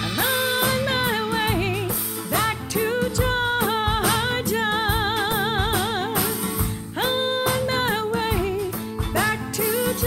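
A rock band with drum kit, congas, bass and guitars playing an instrumental break, with a lead melody line on top that bends in pitch and wavers with wide vibrato.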